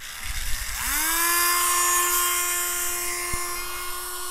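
Proxxon mini rotary tool switching on about a second in, its whine rising quickly and then running at a steady high pitch as its metal-drilling bit bears on soft aluminium sheet.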